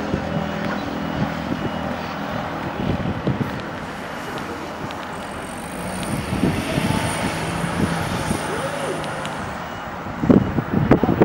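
Air-cooled flat-four engine of a classic Volkswagen Beetle revving up and easing off as the car is driven hard through tight turns, its pitch rising and falling. A louder, rougher rush of noise comes near the end.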